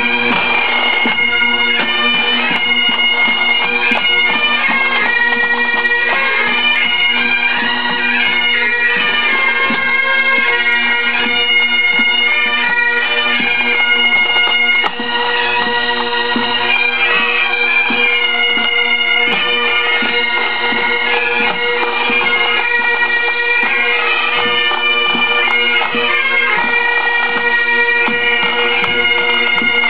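Great Highland bagpipes of a pipe band playing a tune over their steady drones, with drums keeping time underneath.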